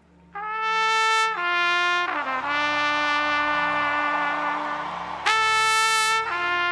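Solo trumpet playing a slow melody of long held notes: a couple of notes stepping down in pitch, then a long sustained note, then a higher, brighter note about five seconds in. A soft steady accompaniment sits underneath.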